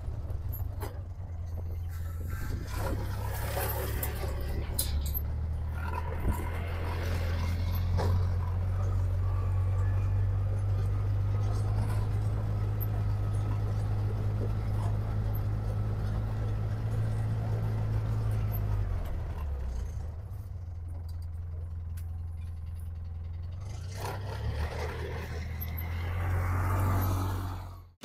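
Steady low rumble of a vehicle driving, engine and road noise. It drops a little quieter for a few seconds about two-thirds of the way through, then fades out at the very end.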